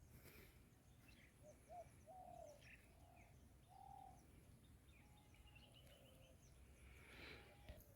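Faint birds calling: short arching notes and scattered high chirps, with a brief rush of noise about seven seconds in.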